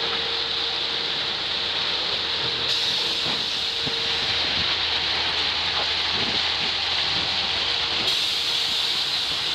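Railway track maintenance machine working on the track: a steady hiss with a faint hum that stops about halfway through and a few faint knocks in the second half.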